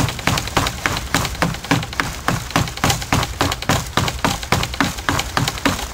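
Stone hand axe chopping into the trunk of a small maple sapling: quick, even blows of stone on wood, about three a second.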